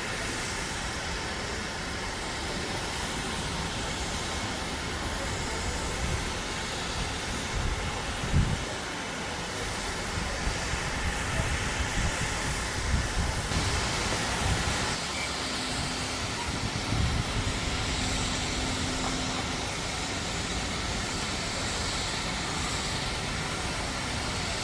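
Steam tank locomotive at the platform giving off a steady hiss of steam, with a few low thuds.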